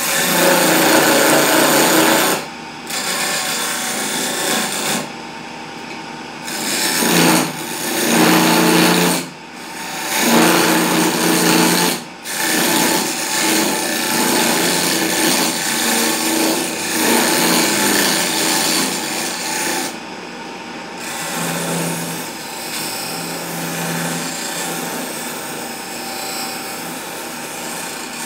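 Wood lathe spinning a wooden spindle while a hand-held turning chisel scrapes and cuts into it, in long passes broken by several short pauses where the tool comes off the wood.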